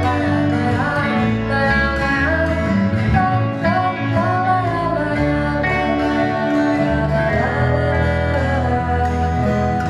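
Live band playing the instrumental close of a Brazilian pop song: acoustic guitar and bass under a melodic line, at a steady, full level.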